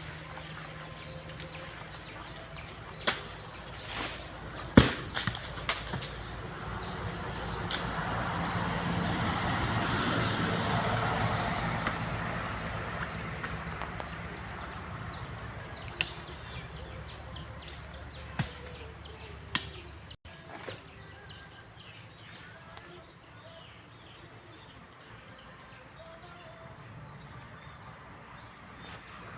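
A few sharp knocks, the loudest about five seconds in, and a swelling rustle of noise in the middle, with birds chirping faintly in the latter part.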